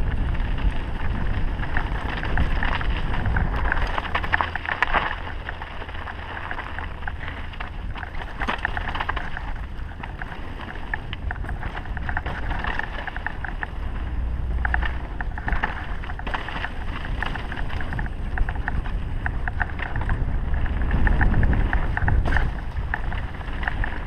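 Wind buffeting the microphone and mountain-bike tyres rolling over a loose dirt trail on a downhill run. Frequent clatters from the bike rattling over bumps and stones run through it.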